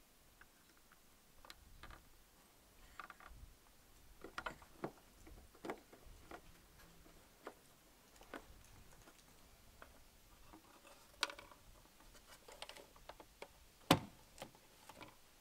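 Faint, irregular plastic clicks and taps from handling a bulb, its socket and a Hyundai i30 tail-light housing as a brake/tail bulb is fitted and the socket twisted into the housing. A louder sharp snap comes near the end, as the tail-light unit is pressed back into the car body.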